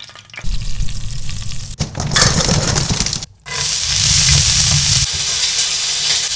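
Seafood sizzling in hot oil in a paella pan: a lobster and then shrimp searing. The sizzle drops out briefly about three and a half seconds in, then comes back louder and steady.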